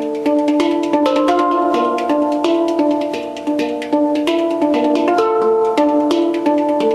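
Background music: a tune of clear pitched notes stepping up and down over a light ticking beat.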